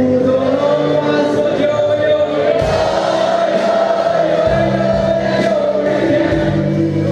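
A rock band playing live: electric guitars, bass guitar and drums, with singing that holds one long note, rising slightly, over about the first four seconds.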